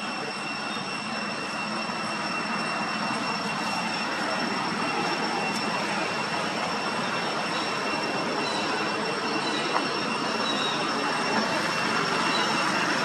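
Steady, rushing outdoor background noise with a constant high-pitched whine, slowly growing louder, with a few faint short chirps in the second half.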